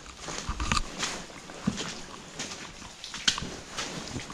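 Footsteps crunching over dead leaves and loose rubble, uneven and close, with a sharper click a little past three seconds in.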